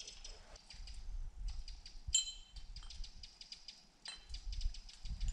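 Irregular crunching and clicking of footsteps on loose slate rubble, with a low wind rumble on the microphone.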